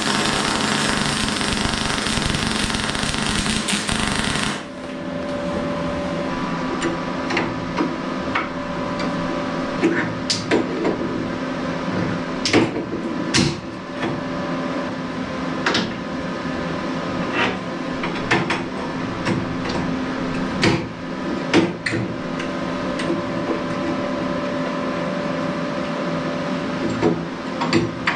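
Electric arc welding on steel, a dense crackle of the arc with spatter, which stops about four and a half seconds in. Then come scattered metallic clicks and knocks as the clamps and steel parts are handled on the bench, over a steady hum.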